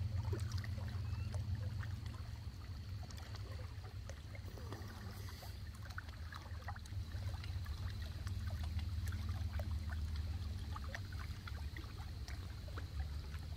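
Riverbank ambience: a low, unsteady rumble of wind on the microphone, with small ticks and trickles of river water lapping among the shoreline rocks.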